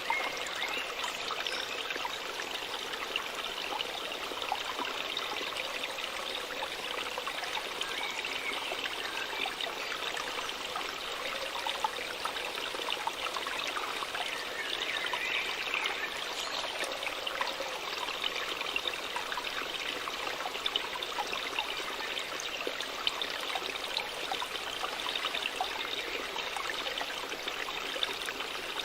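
Small waterfall: water splashing and trickling steadily, a bright, even rush with little deep rumble.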